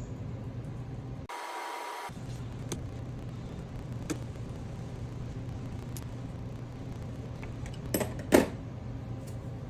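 Light clicks and knocks of hardware being handled on a workbench, over a steady low hum. The loudest is a sharp double knock about eight seconds in.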